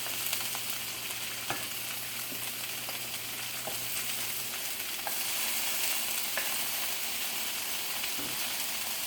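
Chopped vegetables sizzling steadily in hot oil in a wok as they are stir-fried, with a few light clicks from the stirring. A low hum in the background stops about halfway through.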